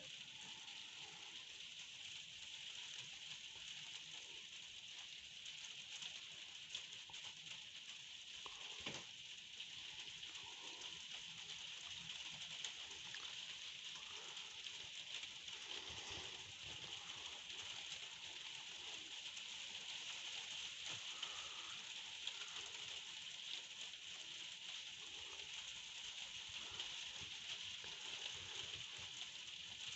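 Faint, steady hiss of light rain falling, with a few faint scattered sounds and one brief click partway through.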